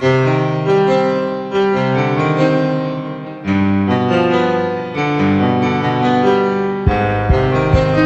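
Background piano music with a melody over chords; a low beat comes in near the end.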